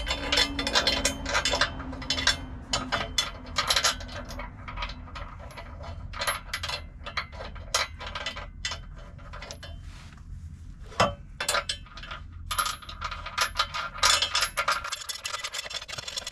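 Irregular small metallic clicks and clinks of an Allen screw, its washer and a hex wrench being worked into a metal suspension drop bracket.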